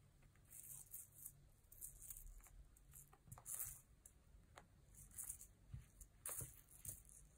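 Faint, irregular scratching and rustling with a few light taps: a kitten playing with its toys.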